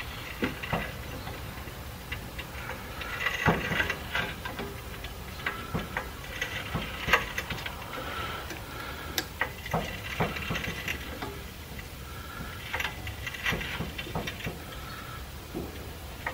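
Hydraulic trolley jack being pumped in slow strokes, with a cluster of clicks and creaks about every three seconds and light ticking in between, as it raises a car's front suspension toward ride height.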